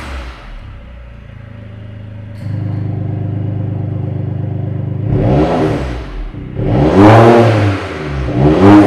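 BMW F70's B38 three-cylinder turbo engine through a valved aftermarket catback exhaust with quad tips: idling, then the note steps up and holds steady about two and a half seconds in. Near the end it is revved three times, each rev rising and falling, the last two the loudest.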